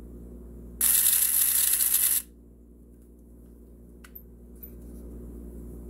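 Ideal Motorific toy boat motor, a small battery-powered electric motor driving its gear train, whirring loudly for about a second and a half before cutting off suddenly. A single faint click follows a couple of seconds later.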